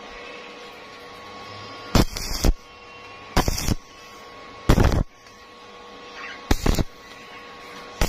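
Stick-welding arc from an E6013 electrode at about 75 amps, struck and broken again and again: about five short bursts of arc crackle, each about half a second, roughly every one and a half seconds. A steady electrical hum runs beneath.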